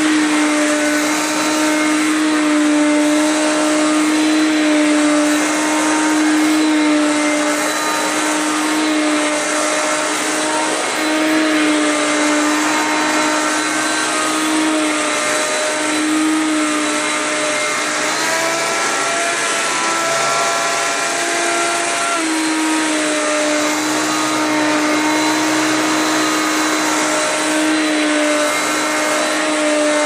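Hoover PowerMax Supreme upright vacuum cleaner running on carpet in self-propelled mode, with a steady motor whine over the rush of air. About eighteen seconds in, the pitch rises for a few seconds, then settles back.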